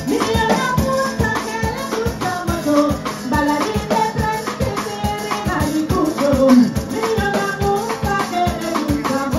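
Live parang band playing: a cuatro and an acoustic guitar strumming over a drum kit, with a woman singing the lead into a microphone.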